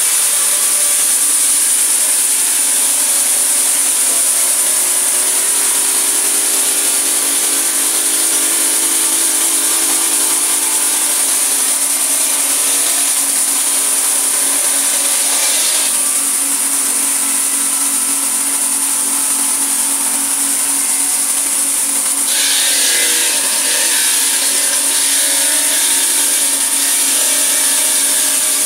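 Swing-arm marble polishing machine running, its rotating abrasive head grinding across a marble slab as it is pushed over the surface. A loud, steady grinding hiss whose tone shifts a little past halfway and turns harsher about three-quarters of the way through.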